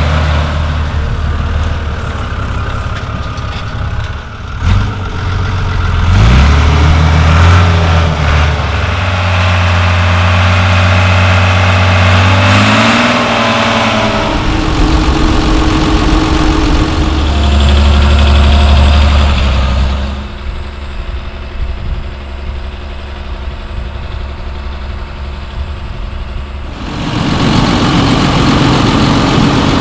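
Fiat 980 tractor's diesel engine running and revving, its pitch rising a couple of times. After about twenty seconds it gives way to a quieter, different engine note, and near the end a John Deere 7930 tractor's engine runs.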